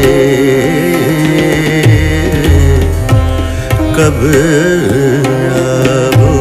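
Thumri in raga Bhairavi: a singer's ornamented, gliding melody accompanied by tabla, with deep bass-drum strokes.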